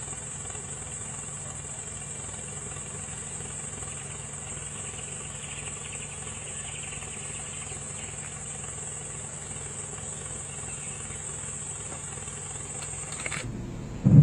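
Insects buzzing steadily in a high, even band, over the low steady hum of a vehicle engine idling. Near the end the sound changes abruptly and a short loud low burst follows.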